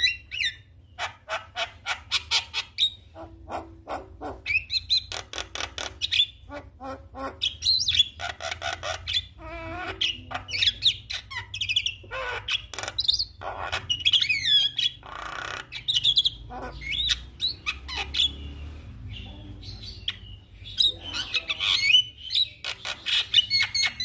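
Javan myna singing: fast runs of short harsh notes, about four a second at the start, mixed with whistled notes that slide up and down and bouts of chatter.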